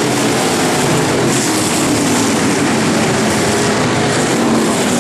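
Several pure stock race cars' engines running together on a dirt oval track, a loud, steady drone of mixed engine notes.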